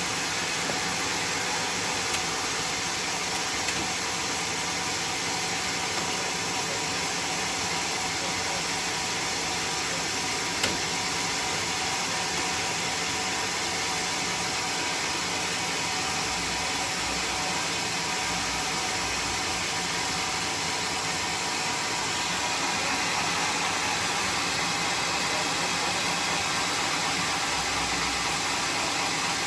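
Band sawmill running steadily, its motor and blade making an even mechanical noise with a few sharp clicks, growing slightly louder about two-thirds of the way through.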